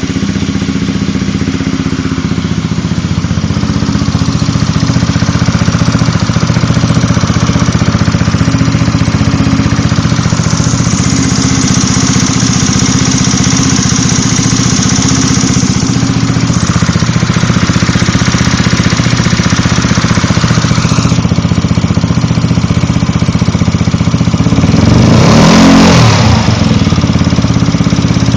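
Yamaha Zuma 125 scooter's single-cylinder four-stroke engine idling with a ticking from the cooling-fan area, which the owner suspects comes from the cam chain tensioner or the lightweight fan. Near the end the engine is briefly revved and drops back to idle.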